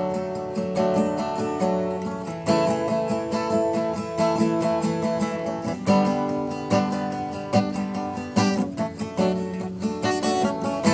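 Acoustic guitar strummed steadily in chords, with no voice over it: an instrumental stretch between sung lines.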